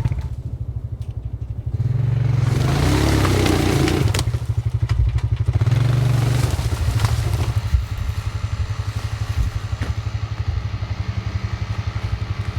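Engine running steadily, revved up twice, first about two seconds in and again around six seconds, with a few clicks and knocks.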